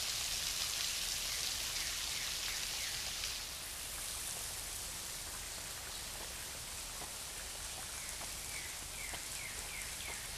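Water from a tall, thin waterfall falling a long way and splashing down in a steady patter, like rain. It eases slightly a few seconds in.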